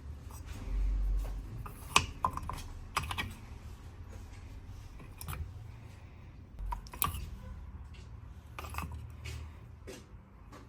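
Scattered light clicks and taps of small hard objects being handled, with a low thump about a second in.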